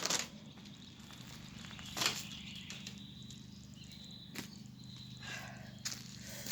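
Four sharp knocks or clicks, spaced one to two seconds apart, the first two the loudest, over a faint steady hum.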